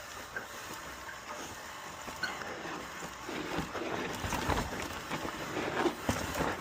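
Mountain bike descending a rocky, technical trail: tyres rolling over rock and dirt with frequent short knocks and rattles from the bike, over a steady rushing noise. It gets louder and busier about halfway through.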